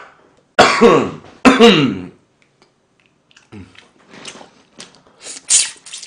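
Two short throaty vocal sounds from a man, each falling in pitch, in the first two seconds. Then quieter, scattered sucking and chewing as he eats meat off a pork bone by hand, with a sharper slurp near the end.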